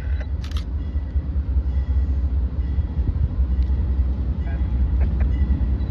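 Diesel locomotive approaching with a steady low rumble, and one brief sharp click about half a second in.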